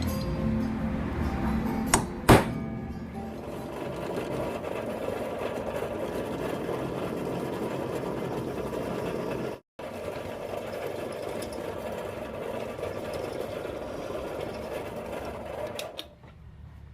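A power tool running steadily on metal, a rapid mechanical whir. It cuts off abruptly about ten seconds in and resumes at once, with two sharp clicks near the start. Background music plays underneath.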